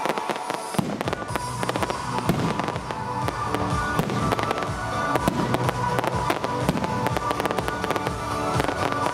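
Fireworks display: aerial shells bursting, with many rapid crackles and bangs. Music plays throughout.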